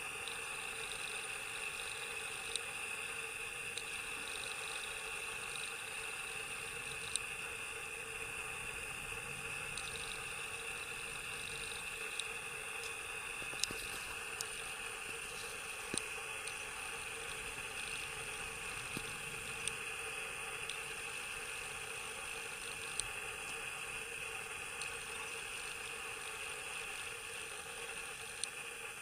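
Steady outdoor background hiss and hum, even throughout, with a few faint scattered clicks.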